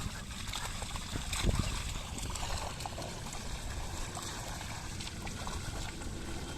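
Bullocks' hooves and a plough working through a wet, muddy field, with water and mud trickling and sloshing. There is a heavier splash or thump about a second and a half in.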